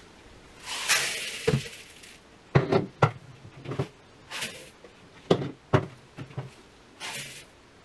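Small seeds poured into a plastic mixing bowl as a rushing patter, about a second long near the start, with two shorter pours later. Sharp knocks and clunks come in between as the plastic hopper catch trays are handled.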